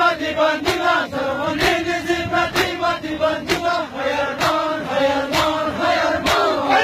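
A crowd of male mourners chanting a noha in unison while beating their chests together in matam, the slaps landing in time with the chant about once a second.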